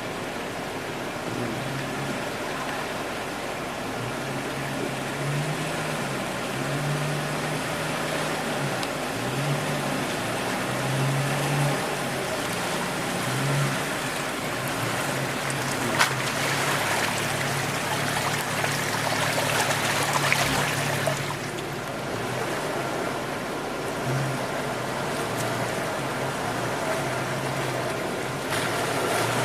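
Creek water rushing, with an SUV engine running low and unevenly underneath; the water noise swells for a few seconds around the middle, and there is one sharp click.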